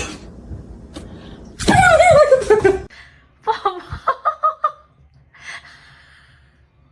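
A loud drawn-out cry falling in pitch, followed by a person laughing in about five short bursts.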